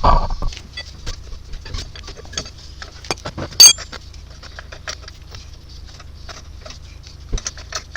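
Metal tools and wheel bolts clicking and rattling as a car wheel is taken off, with one loud ringing metallic clink about three and a half seconds in.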